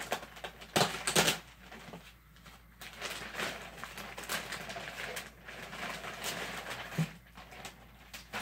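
Clear plastic packaging bag crinkling and rustling as it is handled and opened and the paper instruction sheet is pulled out, with two loud sharp crackles about a second in and a short knock near the end.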